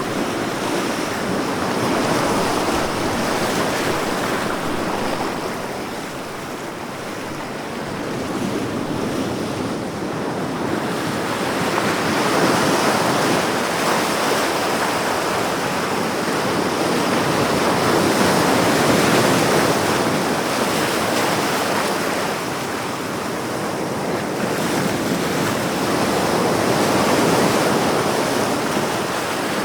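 Ocean surf: waves breaking and washing onto a shore in a continuous hiss that swells and eases every several seconds.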